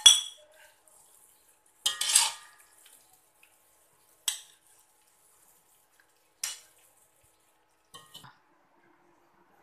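Metal spatula knocking and scraping against an aluminium wok while stir-frying, in about five separate strokes roughly two seconds apart. The stroke about two seconds in is a longer scrape, and the last ones near the end are softer.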